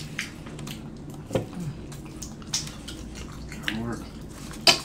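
People eating fried chicken: wet chewing and mouth sounds, with a few short sharp clicks scattered through, the loudest near the end.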